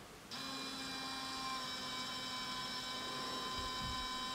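TCS micro pump (3-volt, run from the Raspberry Pi's header) starting about a third of a second in and then running with a steady whine as it circulates coolant around the water-cooling loop. It runs a bit on the loud side because there is still some air in the system, which should bleed out.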